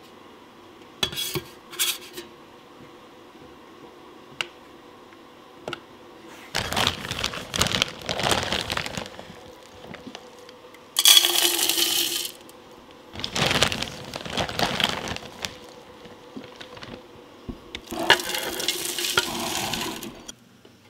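Soy wax flakes poured from a plastic bag into a metal candle-pouring pitcher on a kitchen scale: four pours of a few seconds each, rustling and hissing as the flakes land, with a couple of short clicks about a second in.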